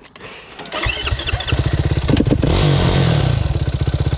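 An off-road vehicle engine starts about a second in and keeps running with a rapid, even pulsing beat.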